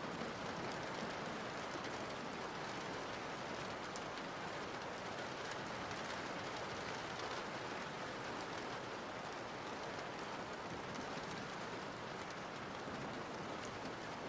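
Soft, steady rain: an even hiss with faint scattered drop ticks.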